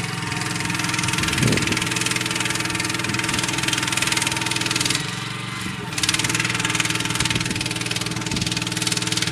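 Engine running steadily, powering the hydraulics of a Wintex MCL3 automatic soil sampler as its mast is raised upright, with a hiss over the engine note. The sound eases for about a second midway, then picks up again.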